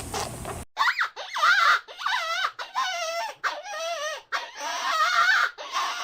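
A run of high, wavering whimpering cries from an animal, each about half a second long with short gaps between. They begin just under a second in, after a brief patter of scratchy noise that cuts off abruptly.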